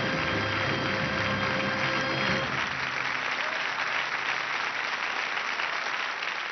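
A performance ending on a held final chord that stops about two and a half seconds in, with an audience applauding through and after it.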